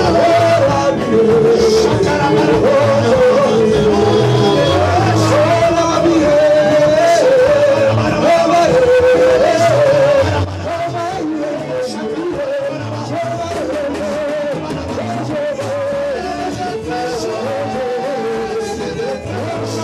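Live gospel song: several male voices singing a melody, backed by acoustic guitar and electric bass. The music gets noticeably quieter about ten seconds in.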